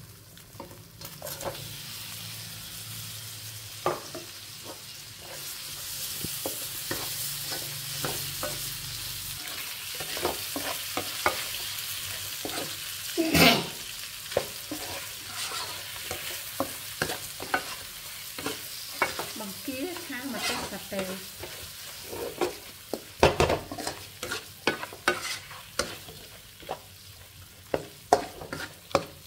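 Shell-on shrimp sizzling in a wok with oil and chili satay paste, stirred with a spatula that scrapes and knocks against the pan, with sharper clacks now and then.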